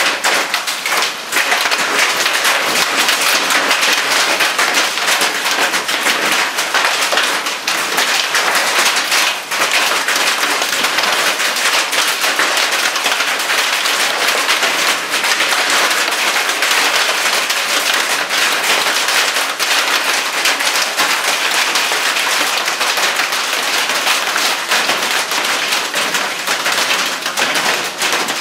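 Hail and rain falling hard: a steady, dense crackle of countless small impacts.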